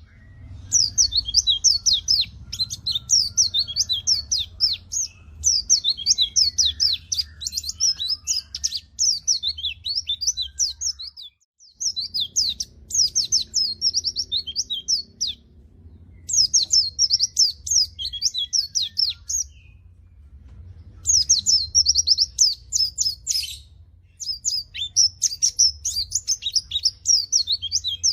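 White-eye (pleci) singing a fast, high-pitched twittering song in phrases a few seconds long, broken by short pauses, over a faint low hum.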